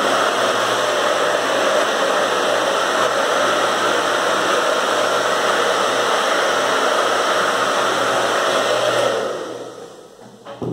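Hand-held hair dryer blowing steadily, drying wet paint, then switched off and fading out about nine seconds in.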